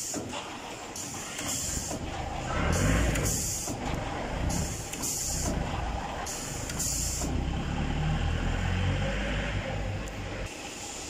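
Automatic hose-cutting machine running: its feed rollers drive hose through with a low mechanical rumble, and its air-driven cutter fires repeatedly, each stroke giving a short hiss of exhausting compressed air, every second or two.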